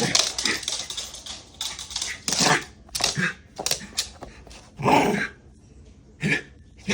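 Shiba Inu's excited growls and short bursts of noise in quick, irregular succession, with clicking and scuffling between them.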